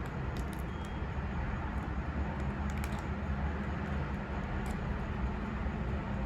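A steady low background hum with a few faint, scattered clicks and taps from plastic being handled.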